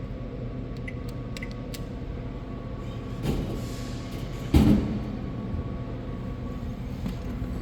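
Drink vending machine vending: a steady low hum from the machine, a rustle about three seconds in, then one loud thump a second later as the drink drops into the delivery bin.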